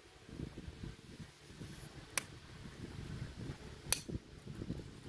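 Hoof nippers snipping through a horse's hoof wall during a trim: two sharp snaps about two seconds apart, the second louder.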